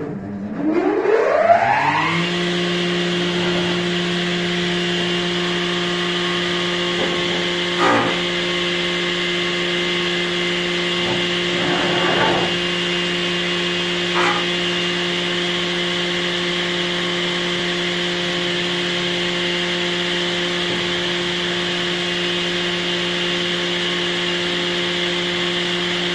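An electric woodworking power tool's motor spins up over about two seconds, then runs at a steady pitch. Three short rough bursts partway through are the tool working into wood.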